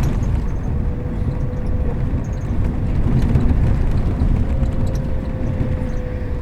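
Bus in motion heard from inside: a steady low engine and road rumble with a faint steady whine above it, and a few light rattling ticks.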